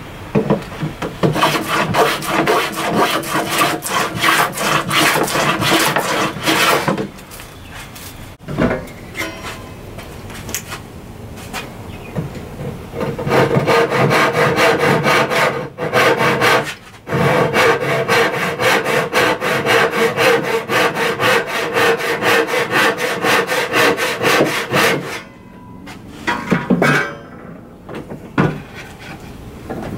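Hand saw cutting through a cherry board with steady back-and-forth strokes, in two long runs with a pause of several seconds between them.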